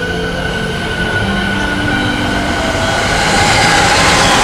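Electric freight train hauling tank wagons approaching on the rails. It gets louder over the last second or so, with a few steady high tones held over the noise.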